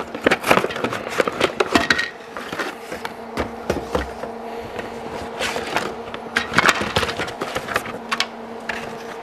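Stiff clear plastic clamshell packaging crackling and snapping as it is pulled open, with metal rail parts clattering against it and the workbench, in bursts that are busiest near the start and again a little past the middle. A steady low hum runs underneath.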